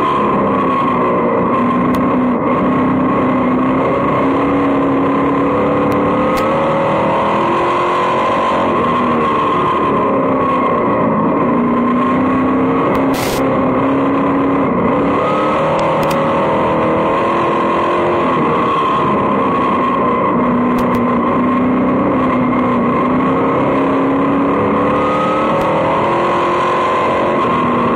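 Vintage dirt-track race car's engine heard from inside the cockpit at racing speed, its pitch climbing and then dropping back in a repeating cycle every several seconds as the car laps the track.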